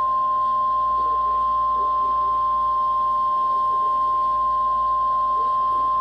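NOAA Weather Radio 1050 Hz warning alarm tone: one loud, steady, unbroken high tone over faint receiver hiss. It is the alert signal that a warning broadcast is about to follow.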